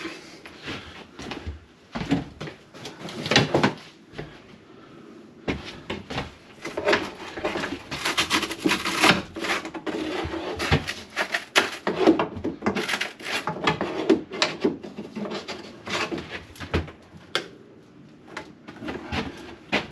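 Hand tools, a screwdriver and then a pry bar, prying and scraping at a bus's interior side-wall panel and its metal trim: irregular knocks, scrapes and creaks, a few at first and then a dense run through the middle, as the panel stays stuck fast.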